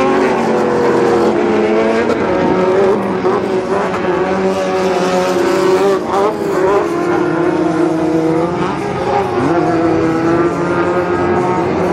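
Several Pro Lite short-course off-road race trucks racing together, their engines revving up and down in overlapping notes that rise and fall in pitch.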